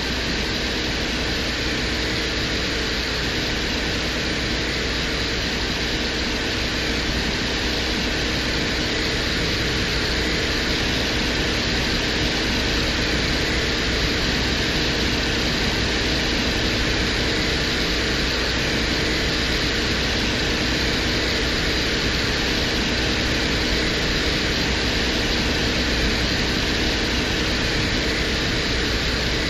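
Audio presented as the Venera 14 lander's soil drill running on the surface of Venus: a steady mechanical hum with a few held tones under an even hiss, unchanging.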